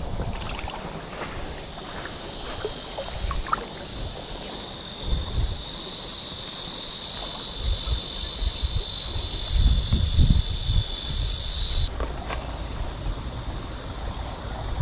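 A high, steady insect chorus over the rush of a mountain stream, with wind gusting on the microphone. The insect sound swells about midway and cuts off abruptly near the end.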